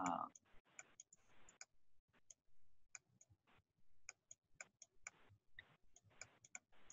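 Faint, irregular clicks and taps of a stylus on a pen tablet during handwriting, several a second, with soft scratchy strokes between them. A brief low thump right at the start.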